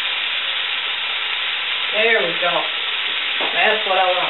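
Onions, radishes and garlic frying in a skillet over a gas flame, a steady sizzle, with the sound of greens being stirred in a pot. A woman's voice comes in briefly twice, about two seconds in and near the end.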